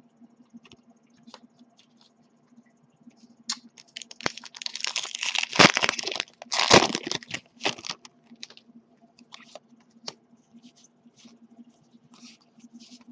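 Pokémon trading cards and a foil booster-pack wrapper being handled: soft rustles and clicks, then a loud burst of crinkling and rustling from about four to eight seconds in. A faint steady hum runs underneath.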